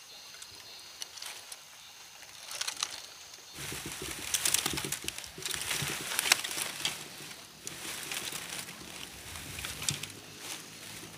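Dry rice straw and bamboo twigs rustling and crackling in irregular bursts as a kindling pile is pushed together by hand and starts to smoke, beginning about three and a half seconds in. Before that there are only a few faint clicks.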